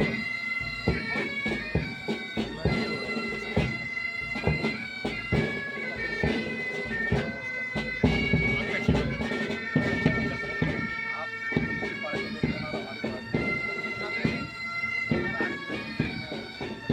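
Pipe band playing a slow march: massed bagpipes carry the melody over their steady drone, with drums beating in time.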